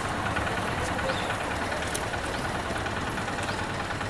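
A steady low mechanical rumble, engine-like, with a few faint clicks over it.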